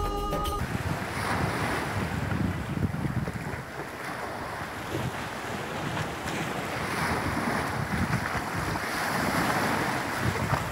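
Sea waves washing and splashing against shoreline rocks in slow surges, with wind buffeting the microphone. Background music cuts off about half a second in.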